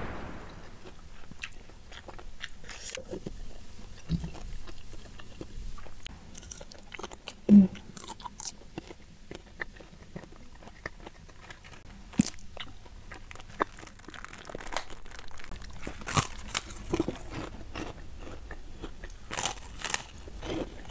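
Close-miked chewing and crunching of fried chicken and rice, with small crisp clicks throughout and a single dull thump about a third of the way in. Near the end come sharper crunching bites into a crispy cracker (kerupuk).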